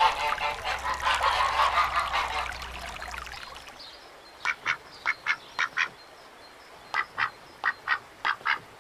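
A flock of ducks calling together in a dense, overlapping chatter that fades out after about three seconds. Then a single duck quacks in two quick runs of short, sharp quacks, about six and then about eight.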